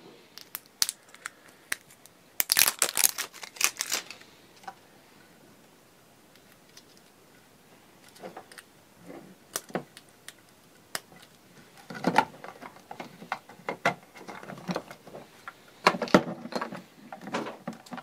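Plastic clicks and rattles of a refrigerant charging scale's handheld display unit being handled while a 9-volt battery is fitted and the battery cover is put back on. The clicks come in bursts, with a quieter stretch in the middle.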